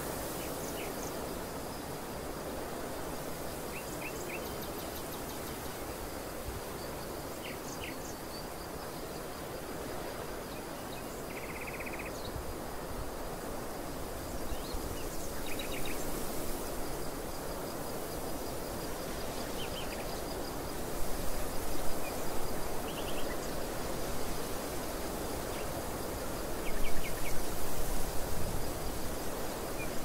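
Open-field outdoor ambience: a steady rush of wind, with gusts hitting the microphone in the second half, loudest about two-thirds in and again near the end. Short bird chirps come now and then over a faint, steady, high insect trill.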